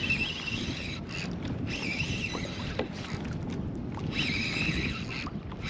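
Fishing reel whirring in three short spurts as a small striped bass is reeled in, over a steady low rumble of wind on the microphone and water around the kayak.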